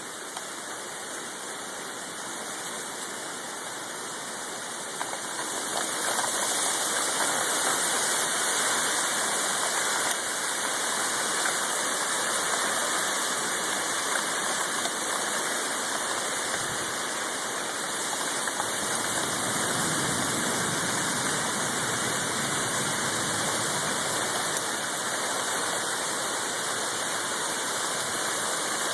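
Storm-force wind blowing hard, a steady rushing that grows louder about six seconds in and stays up.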